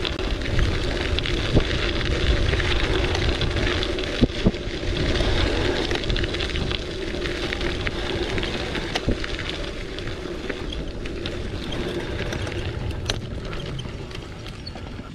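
Wind buffeting the microphone while a gravel bike is ridden over rough ground, with steady tyre rumble and a few sharp knocks from bumps, the loudest about one and a half and four and a half seconds in.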